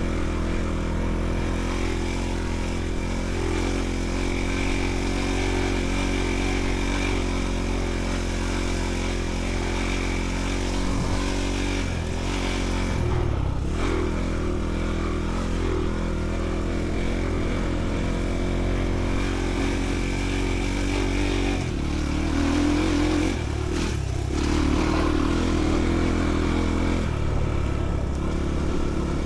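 Enduro motorcycle engine running under way off-road, its pitch steady most of the time, dipping and rising again as the throttle is eased and opened twice.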